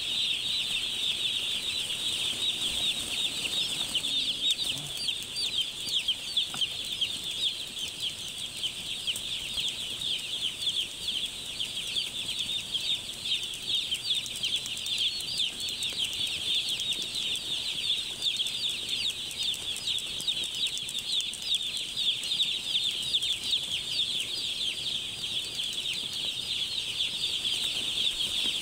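A large flock of young chicks peeping all at once: a dense, steady chorus of overlapping high-pitched cheeps.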